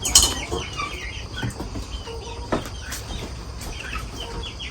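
Backyard chickens clucking and chirping in short, repeated calls, with a sudden loud knock just after the start and a few lighter clicks.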